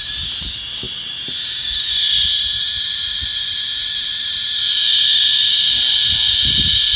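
Radiation Alert Inspector USB Geiger counter's audio, its clicks coming so fast that they run together into a steady high-pitched chirping. It is the sign of strong radioactivity from a uranium-bearing torbernite specimen, with the count above 2,000 per minute. It gets louder about two seconds in as the counter is brought closer.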